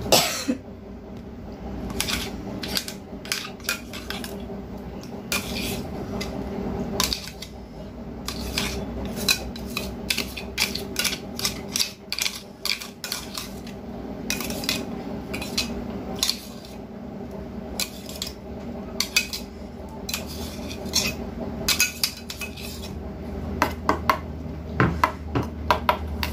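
A metal spoon scraping and clinking against a stainless-steel mixer-grinder jar and a small steel bowl, in irregular strokes, as ground spice paste is scraped out and mixed into poppy-seed paste.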